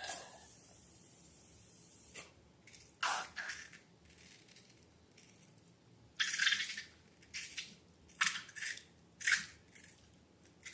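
Slime being squeezed and worked by hand: a string of short, irregular wet squishing and squelching sounds with pauses between them.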